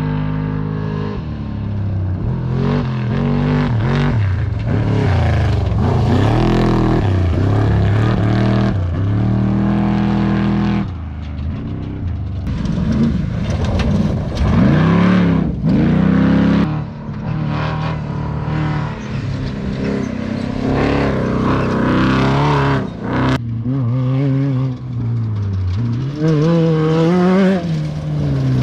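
Off-road race vehicle engines running and revving, their pitch rising and falling again and again, with more than one engine heard.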